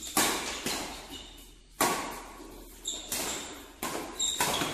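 Badminton rackets striking a shuttlecock in a fast doubles rally, sharp hits about once a second that ring briefly in the hall, with short squeaks of shoes on the synthetic court.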